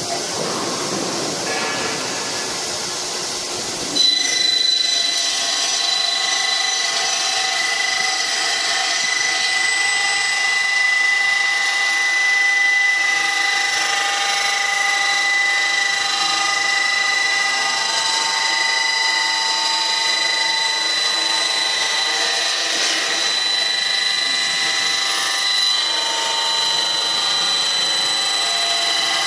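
High-speed cutting tool starting abruptly about four seconds in, then running steadily with a high-pitched whine made of several fixed tones.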